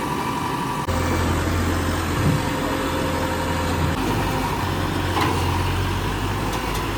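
JCB 3DX backhoe loader's diesel engine running steadily, its low note getting louder about a second in and easing back near four seconds, with a short click about five seconds in.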